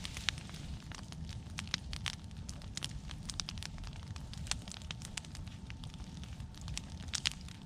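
Wood fire of cut pine and brush crackling, with irregular sharp pops over a steady low rumble.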